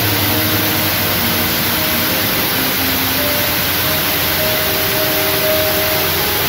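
Soft background music of slow, sustained notes under a loud, steady hiss.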